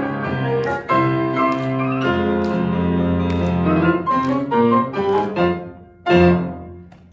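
Grand piano played four hands, running through the closing bars of a lively arrangement. The piece ends on one loud final chord about six seconds in, left to ring and die away.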